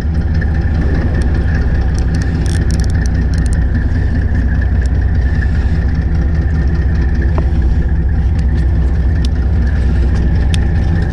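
Fishing boat's engine running steadily: an even, constant low hum with a higher tone above it, and a few faint ticks.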